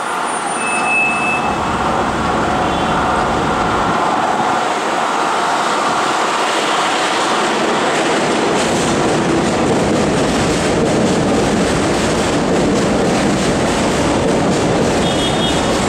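New York City Subway Kawasaki R188 train arriving at an elevated station, its wheels and motors running along the track and growing fuller from about halfway through as it comes alongside the platform.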